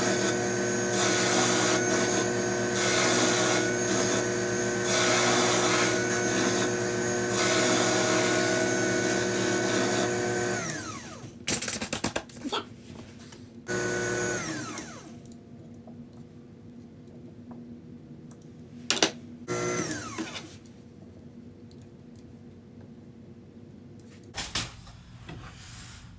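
Cue lathe motor running with a cutting tool taking repeated passes into a maple cue handle, the cutting noise swelling every second or two. About ten seconds in it is switched off and winds down. It is run briefly twice more, each time winding down, with a few clicks and knocks between.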